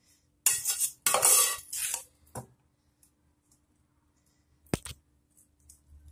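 Metal slotted spoon scraping and clanking against a pot while scooping cooked lentils, for about a second and a half, then a smaller knock and, later, a single sharp clink of metal on the dish.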